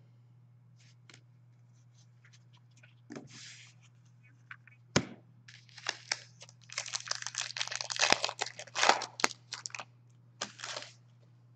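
Foil trading-card pack wrappers being torn open and crinkled by hand, with scattered light clicks, a sharp tap about five seconds in, then a dense stretch of crinkling and tearing and a shorter burst near the end. A faint steady low hum runs underneath.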